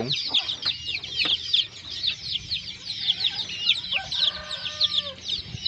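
Young chickens peeping continuously: many short, high-pitched cheeps, several a second, with a lower call about four seconds in.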